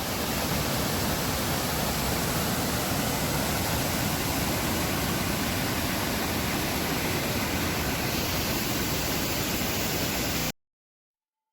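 Steady rushing of water falling down a small waterfall, an even noise that cuts off abruptly near the end.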